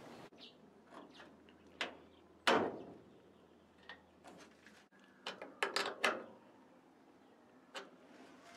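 Metal carriage bolts and nuts being handled and fitted into wooden car-body roof framing: scattered clicks and knocks of metal on wood, the loudest about two and a half seconds in and a quick cluster between five and six seconds.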